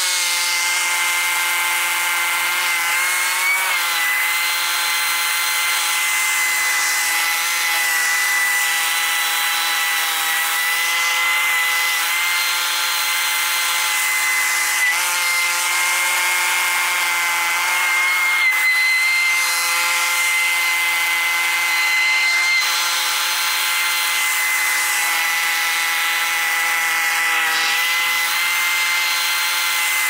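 Ferris FB3000 stand-on leaf blower running at full throttle: a steady, high-pitched impeller whine over the engine's drone and the rush of air, the pitch rising briefly about three seconds in and wavering a little as it blows.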